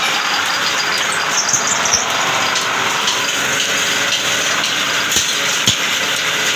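Belt-driven metal-spinning lathe running steadily while a long steel bar is pressed against a spinning aluminium pot to form it, a steady grinding noise with a few sharp knocks.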